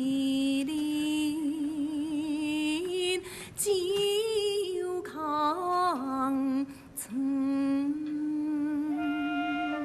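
A woman singing a slow gezaixi (Taiwanese opera) aria in long, wavering held notes with gliding pitch changes, over instrumental accompaniment. Two short sharp knocks come through, one near the middle and one about two-thirds of the way in.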